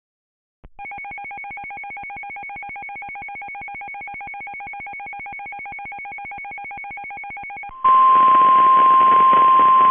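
Weather radio emergency alert tones. A fast, even electronic beeping pulse, several beeps a second, runs for about seven seconds. It then switches to the louder steady 1050 Hz NOAA Weather Radio warning alarm tone over radio hiss, which signals an urgent warning to follow.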